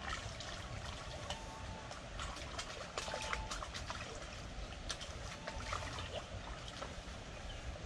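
River water trickling and lapping at the edge of the bank, with scattered small clicks and splashes.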